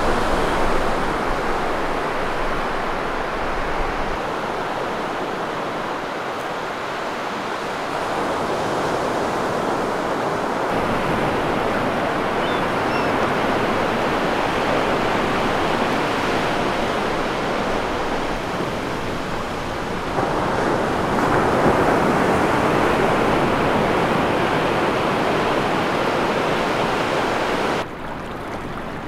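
Ocean surf breaking and washing up a sandy beach, a steady rush of noise. It gets abruptly louder or softer several times and drops sharply near the end.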